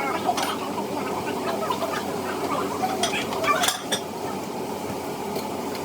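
Food sizzling in a pan while a utensil stirs and scrapes it, with a few sharp clinks of cookware about three and a half seconds in.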